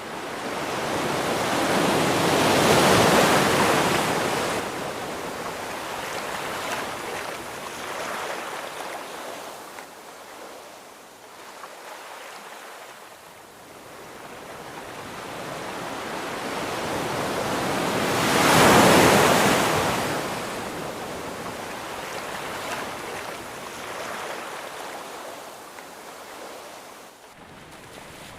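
Ocean waves breaking on the shore: two big swells break loudly, about three seconds in and again near two-thirds through, each washing out slowly between them, with some wind on the microphone.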